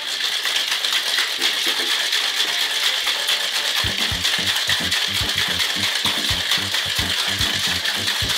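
Ice rattling fast and hard inside a metal cocktail shaker, shaken vigorously at length to froth the egg white of a Silver Fizz. Background music with a steady beat comes in about four seconds in.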